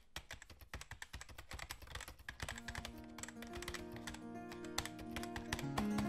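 Rapid keyboard-typing sound effect, a dense run of clicks. Music with held notes fades in about two and a half seconds in and grows louder under the clicks.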